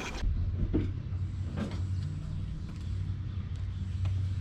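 A steady low engine-like hum, with a few faint clicks and knocks over it.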